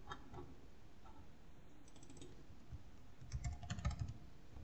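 Typing on a computer keyboard: a few scattered key clicks, then a quick run of keystrokes about three and a half seconds in.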